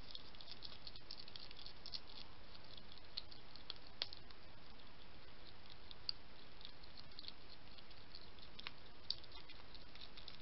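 A wild European hedgehog eating dry food from a dish: quick, irregular crunching and small clicks, busiest in the first couple of seconds, with a few sharper clicks later on, over a steady background hiss.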